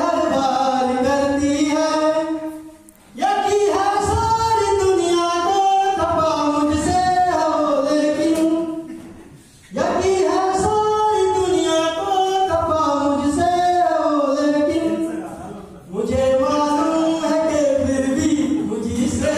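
A man sings unaccompanied into a microphone in long phrases of held, wavering notes. The song breaks off briefly three times, about 3, 9 and 16 seconds in.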